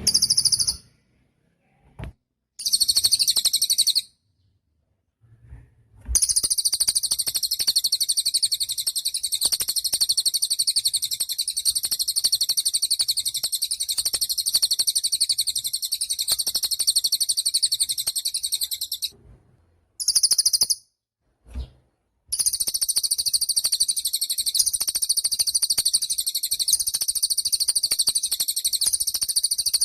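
Cililin songbird singing a very high, rapid, chattering trill. Short bursts give way to one long unbroken run of about thirteen seconds, then a brief burst and another long run from a little past the middle.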